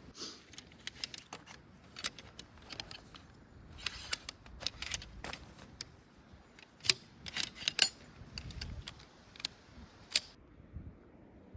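Small metal objects clinking and rattling in a series of irregular sharp clicks, which stop suddenly about ten seconds in.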